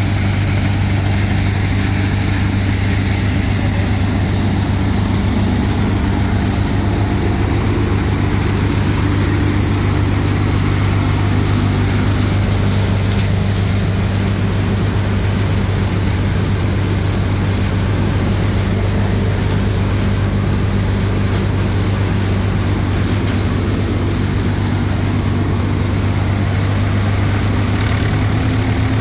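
Tractor-powered grain thresher running at steady speed: a constant, unchanging engine drone with a strong low hum.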